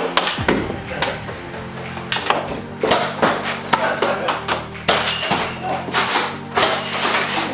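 Background music with a steady bass line, over a dozen or so irregular sharp clacks and taps from Nerf blasters firing and foam darts hitting the floor and walls.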